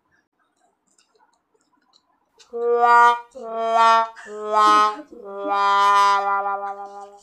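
Sad trombone comedy sound effect: four descending muted-brass "wah" notes, the last one held long and wavering.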